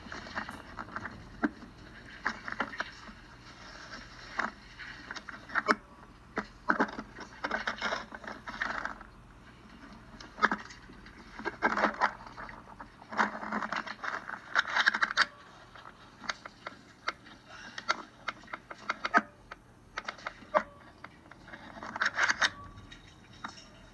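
Clothing and gear scraping, rustling and knocking against rock as a person crawls through a tight cave squeeze: irregular scrapes with sharp clinks and taps.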